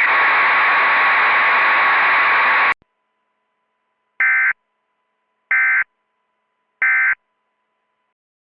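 Radio-style static hiss, cut off suddenly with a click, then three short buzzy bursts of Emergency Alert System data about 1.3 seconds apart: the end-of-message header that closes an EAS alert.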